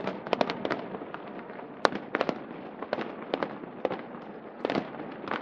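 Aerial fireworks bursting: a string of sharp bangs and cracks at irregular intervals, some in quick clusters, the loudest about two seconds in.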